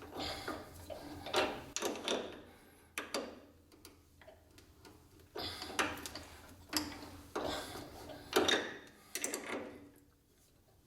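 Irregular knocks and clinks of metal parts being handled, about a dozen sharp hits each with a short ring, growing sparser near the end.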